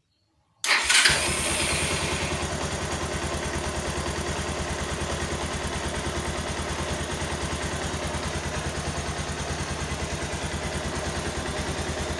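Bajaj Pulsar 220F's single-cylinder engine electric-started, catching almost at once less than a second in and settling to a steady idle. A brief high whine during the start, which the owner thinks may be a trait of the newly fitted ESF CDI ignition unit.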